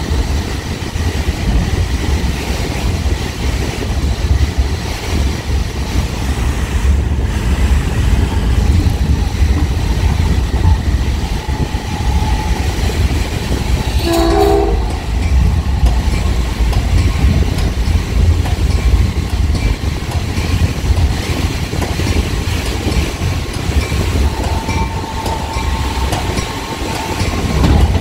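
Diesel Caltrain Gallery train heard from inside its leading cab car while running: a steady low rumble of wheels on rail. About halfway through comes a short horn blast.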